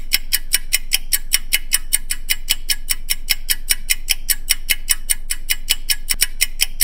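Countdown clock sound effect: fast, even ticking, about six ticks a second, marking a 10-second timer.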